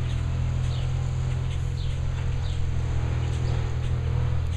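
Steady low engine hum. A small bird's short falling chirps come over it about twice a second.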